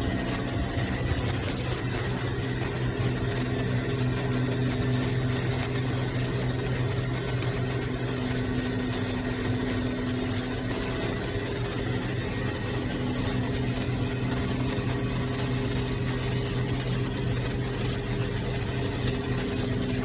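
Machinery running steadily: a constant low hum with a faint high whine over a broad rushing noise.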